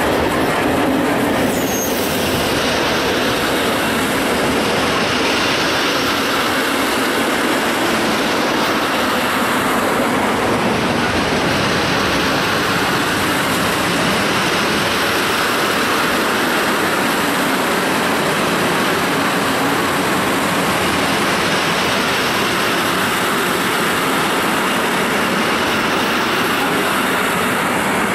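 Long train of loaded fuel tank wagons rolling past close by: a steady, loud rumble and hiss of steel wheels on the rails.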